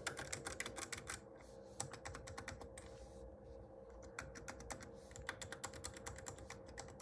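Computer keyboard being typed on: a fast, irregular run of faint key clicks with a few short pauses. The typist thinks the keyboard sounds bad.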